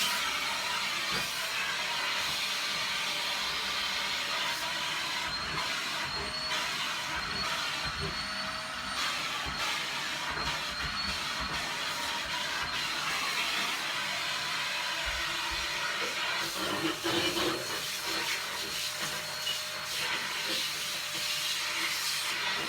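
Vacuum cleaner running steadily over a floor: a continuous rushing hiss with a faint high whine.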